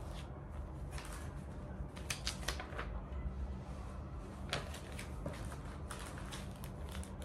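Scattered short rustles and clicks of packaging being handled: a clear plastic bag, a paper leaflet and a cardboard box. A low steady hum runs underneath.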